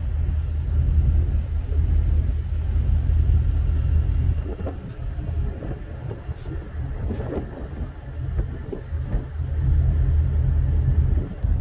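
Wind buffeting the microphone on a moving ferry's open deck: a heavy low rumble that swells and drops in gusts, weaker for a few seconds in the middle.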